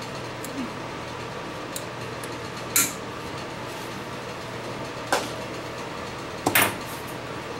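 Sharp metallic clinks of small hand tools being handled on a workbench: one about three seconds in, one about five seconds in, and a quick double clink near the end, over a steady background hum.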